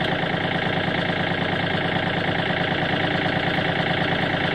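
A compact tractor's engine idling steadily.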